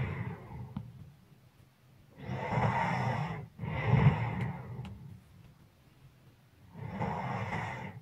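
A sleeping person breathing heavily, each breath rough with a low snoring rasp. One breath in and out comes about two seconds in, and the next breath starts near the end, with quiet pauses between.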